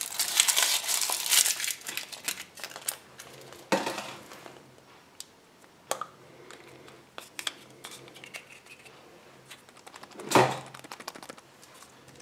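Foil wrapper of a Kinder Surprise chocolate egg crinkling as it is peeled off by hand, then quieter handling as the milk-chocolate shell is cracked and split open, with a few sharp cracks and knocks, the loudest about ten seconds in.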